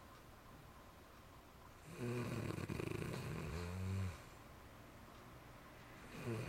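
A person with sleep apnea snoring in sleep without a Nastent nasal stent in place: one long snore about two seconds in, lasting about two seconds, and the next snore beginning near the end.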